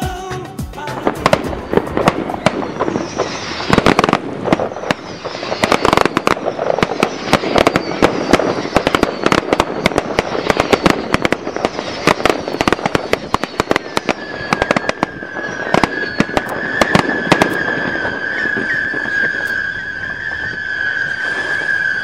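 Fireworks display: a rapid series of bangs and crackles from bursting shells. About two-thirds of the way through, a long, steady, high whistle from whistling fireworks starts and holds over the bangs.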